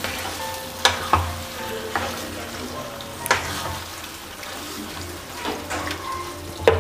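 Marinated chicken frying and sizzling in oily curry masala in a pan while it is stirred, with a few sharp clinks of the spoon against the pan.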